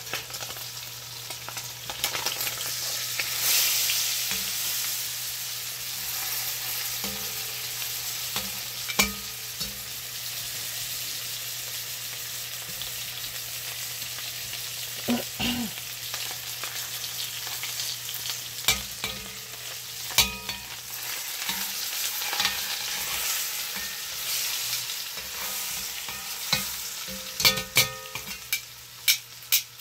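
A pork roast searing in butter and olive oil in an enameled cast-iron Dutch oven: a steady sizzle, louder a few seconds in. Metal tongs and a spatula knock and scrape against the pot as the roast is turned, with several sharp clacks near the end.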